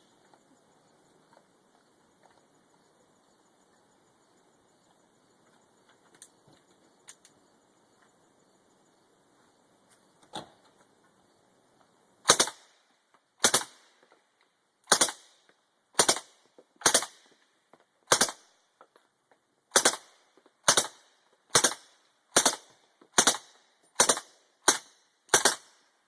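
Suppressed Uzi fired in single shots, about fourteen sharp reports roughly a second apart that begin about halfway through, after a stretch of faint handling clicks.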